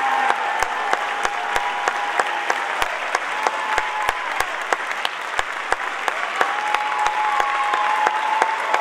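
Audience applauding, with sharp individual claps close by.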